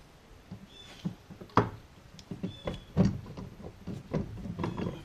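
Irregular metallic clicks and knocks of hand tools and parts as a brake hydroboost unit is fitted and bolted to the firewall, several sharp knocks about a second apart. A short high chirp repeats three times or so, about every second and a half.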